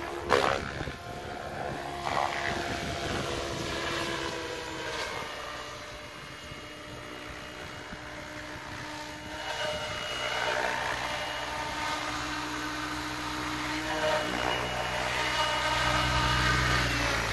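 Electric SAB Goblin 700 Competition RC helicopter in flight, its motor and rotor whine rising and falling in pitch as it manoeuvres. It grows louder near the end as it comes down to hover low, with a brief knock about half a second in.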